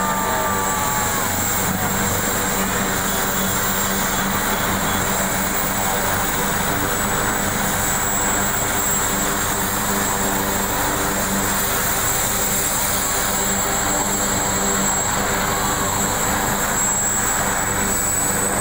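AgustaWestland AW139 twin-turbine helicopter running on the ground with its main rotor turning: a loud, steady engine and rotor noise with a high turbine whine that rises slightly near the end.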